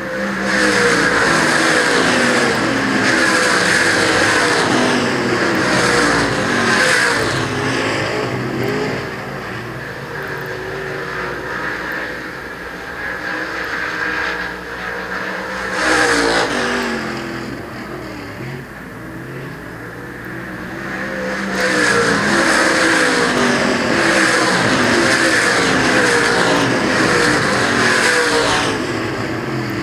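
A field of IMCA Late Model dirt-track race cars at racing speed, their V8 engines revving up and down in overlapping rising and falling tones. The pack comes past loudly twice, early and again near the end, with a single brief loud pass about halfway between and quieter engine noise from the far side of the track in the gaps.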